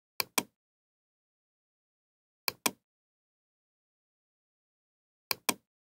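Computer mouse clicking three times, each click a quick pair of sharp clicks: button press and release.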